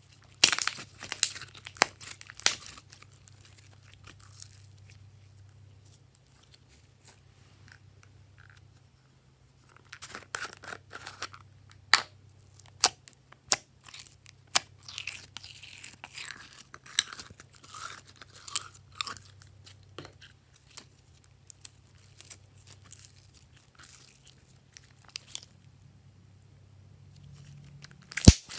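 Clear glossy slime being squeezed, poked and kneaded by hand, giving sticky clicks, pops and crackles in clusters. There is a quiet spell of several seconds after the first burst.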